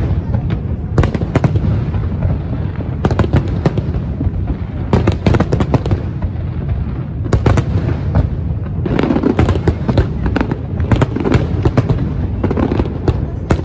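Aerial fireworks display: many shells bursting in quick succession, sharp bangs and crackle over a continuous low rumble.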